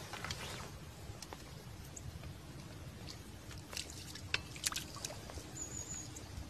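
A small hooked fish splashing at the water's surface as it is played and lifted out, a handful of short sharp splashes around four to five seconds in, over a steady low background rumble.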